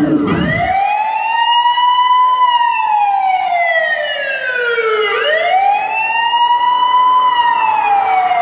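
A wailing siren effect played through a DJ sound system in a break in the dance music, with no bass underneath. It goes through two slow rise-and-fall cycles, each climbing for about two seconds and then falling for about three.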